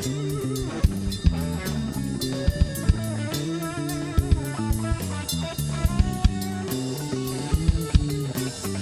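A live band playing a song: electric guitar over a bass line that steps from note to note, with a drum kit hitting kick and snare throughout.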